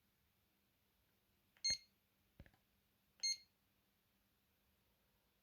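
Alcatel One Touch Easy mobile phone giving two short, high-pitched keypress beeps about a second and a half apart as its menu buttons are pressed, with a soft button click between them.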